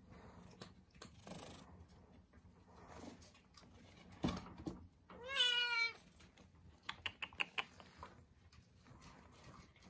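A grey kitten meows once, a single wavering call lasting under a second about halfway through. A thump comes just before it, and a quick run of light clicks follows about a second later.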